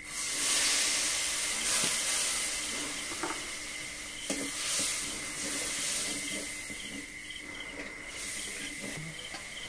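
Water poured from a bowl into hot oil and frying spice paste (ginger-garlic and chilli paste with turmeric) in a steel kadai, hissing and sizzling sharply at once and then dying down gradually. A metal spatula stirring the masala gives a few light scrapes and clinks against the pan.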